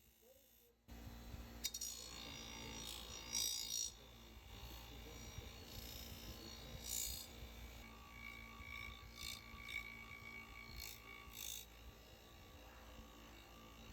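A steady low rumble of distant machinery starts abruptly about a second in. Scattered clinks and a faint whine sound over it in the middle.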